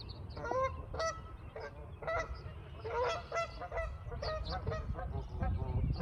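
A flock of geese honking: many short calls overlapping and following one another in quick succession.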